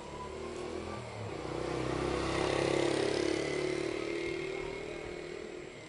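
A motor vehicle driving past, its engine growing louder to a peak about three seconds in and then fading away.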